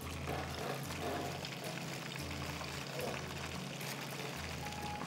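Faint background music with a low bass note pulsing at a steady pace, over an even hiss.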